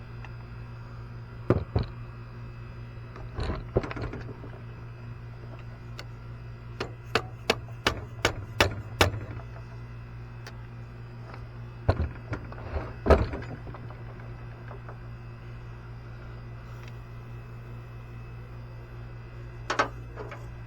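Sharp knocks and taps of tools against a TaoTao 150cc ATV engine being worked on: single knocks now and then, and a quick run of about eight taps near the middle, over a steady low hum.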